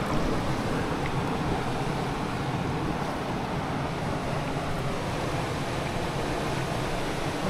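Steady rush of wind and water from a motorboat underway on the lake, with a low engine drone underneath.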